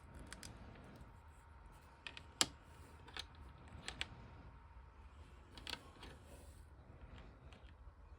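Faint handling of small plastic action-figure parts, with a few scattered light clicks; the sharpest click comes about two and a half seconds in.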